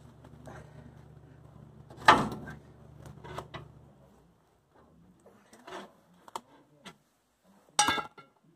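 Hand tools being handled under a car's front suspension: a series of sharp metal clanks and knocks, the loudest about two seconds in and a clattering pair near the end. A steady low hum in the background stops about four seconds in.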